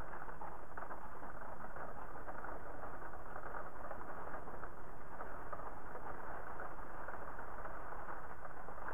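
Steady rain pattering: a dense, even hiss of drops that holds without let-up.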